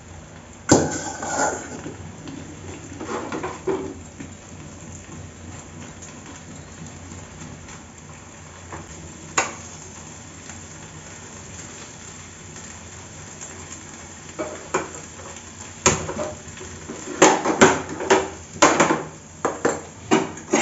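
Steel kitchen utensils clinking and knocking: a spoon against a steel bowl and pans set down on the gas stove, with a quick run of knocks near the end. Underneath, a steady hiss of vegetable pieces frying on a tawa.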